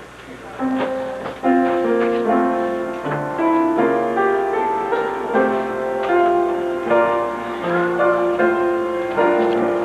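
Piano music, a run of quick notes over held chords, coming in about a second in and carrying on steadily.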